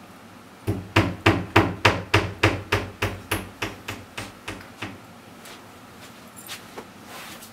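Quick, heavy footsteps, about three thuds a second, fading away over a few seconds as the walker moves off.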